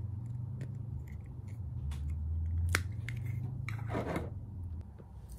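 Handling noise from a plastic anime scale figure and its base being turned and set down: scattered small plastic clicks and taps, a sharper click a little before 3 s, and a short rustle about 4 s in.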